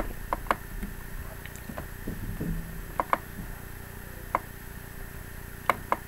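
Computer mouse buttons clicking: a few sharp clicks, mostly in quick press-and-release pairs, over a faint steady hum.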